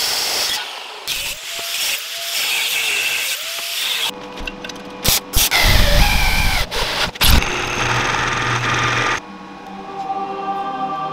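A run of metal-shop work sounds cut together: an electric drill boring through steel channel, and several sharp knocks of steel parts being handled.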